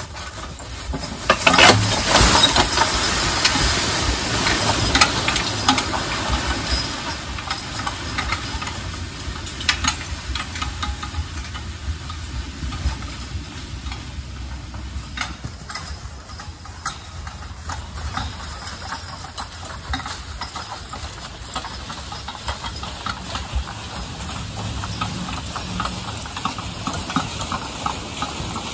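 Draft horse team hauling a log arch with a log skidding behind through deep dry leaves: hooves and the dragged log crunch and rustle through the leaf litter, with the arch and its chains rattling and knocking. Loudest a couple of seconds in, then fading as the team moves off.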